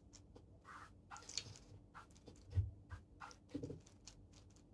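Faint sticky clicks and soft squelches of a runny homemade slime mixture being worked by hand; the slime has not set. There are a few dull low thumps around the middle.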